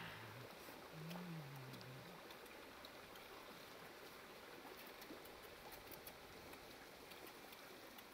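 Faint, steady rush of a shallow rocky stream, with a brief low wavering hum about a second in.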